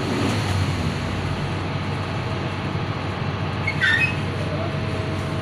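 Steady vehicle engine noise, with a short high squeak about four seconds in.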